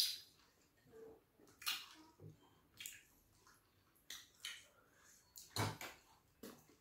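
Wet eating sounds from fufu and ogbono soup eaten by hand: soft squelches and smacks in short, irregular bursts.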